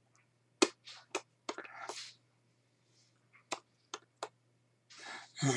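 A man whispering and mouthing words: short breathy puffs and hisses, with scattered lip smacks and mouth clicks, over a faint steady hum.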